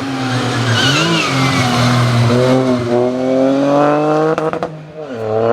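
Rally car engine revving hard, its pitch climbing and dropping through gear changes. A few sharp cracks come as the revs fall about four and a half seconds in, then it revs up again near the end.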